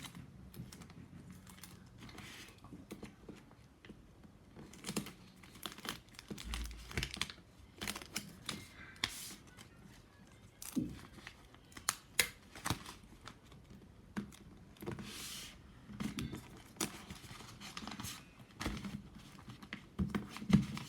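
Paper crinkling and rustling in the hands while sticky tape is pulled off the roll and torn, as irregular clicks, crackles and short rasps.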